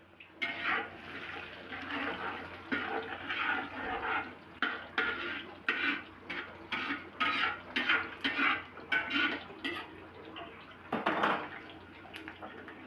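Chopped garlic sizzling in oil in a steel wok while a metal spatula scrapes and clinks against the pan in quick strokes, about two or three a second. After a short pause comes one longer, louder scrape near the end.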